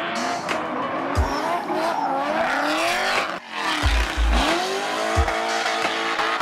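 Drift cars' engines revving hard in rising and falling sweeps, with tyres squealing, mixed under a hip-hop trap beat whose deep bass kicks land every second or so. The sound drops briefly about halfway through.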